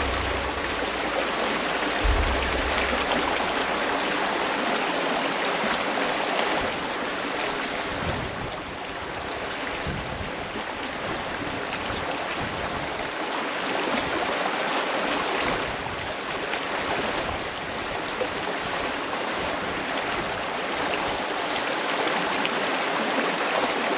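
Shallow creek rippling over rocks: a steady rush of running water.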